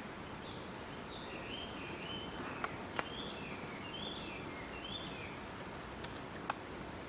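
A bird singing a string of short, wavy chirping phrases against a steady outdoor background hiss. Three sharp clicks fall in the middle and near the end.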